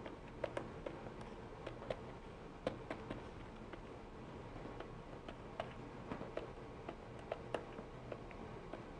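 Plastic stylus tapping and clicking on a pen tablet while short dashes and words are written, in irregular sharp clicks over a faint steady hum.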